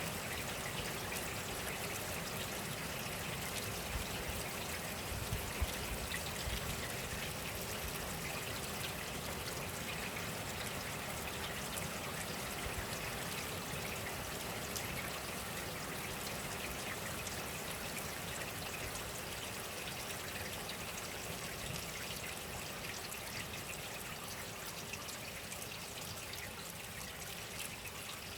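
Steady rain falling, an even hiss of many fine drops, easing slightly near the end.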